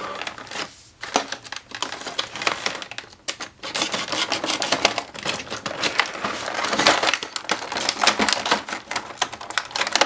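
Stiff clear plastic packaging being handled and pried at with scissors: a dense run of clicks, crackles and rustling, with shredded-paper packing rustling around it. There are brief lulls about a second in and again a few seconds in.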